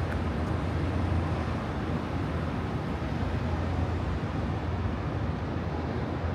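Steady outdoor background noise: an even hiss over a constant low rumble, with no distinct events standing out.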